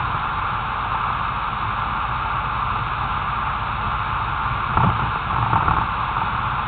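Steady road and wind noise heard through an action camera mounted low on the outside of a moving car: a constant hiss over a low rumble, with a brief thump about five seconds in.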